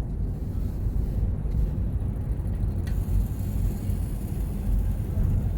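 Car driving on city streets: a steady low rumble of engine and road noise, with a single sharp click about three seconds in.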